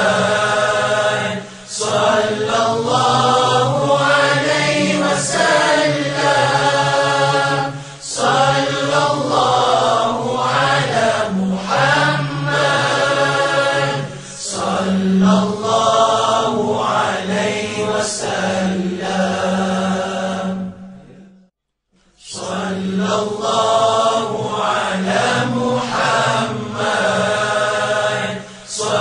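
Arabic devotional chanting in praise of the Prophet Muhammad (selawat), sung in long phrases over a low, steady accompaniment. About three-quarters of the way through it fades out to a second of silence, then a new chant begins.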